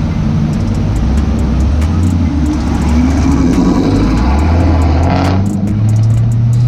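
Car engine accelerating, its pitch climbing and stepping as it shifts gears, then holding a steady higher pitch near the end.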